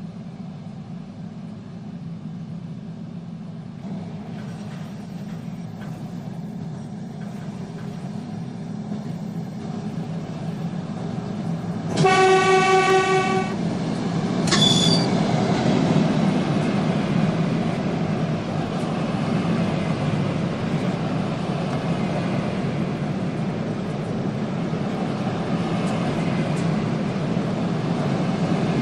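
A train approaching with a low rumble that grows steadily louder, sounding one long horn blast about twelve seconds in and a brief higher toot just after, then passing close with a loud, steady rumble.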